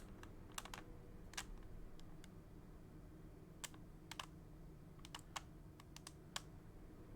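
Sharp plastic clicks and clacks of an original Rubik's Cube being turned and handled, about a dozen separate clicks at irregular intervals over a faint steady hum.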